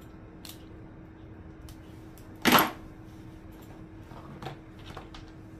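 Objects handled on a workbench: a few small clicks and one short, loud knock about halfway through, over a faint steady electrical hum.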